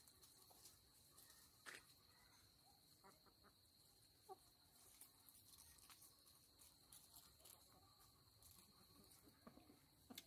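Near silence: a faint, steady, high insect trill like a cricket, with a few soft clicks and a short chicken cluck about four seconds in.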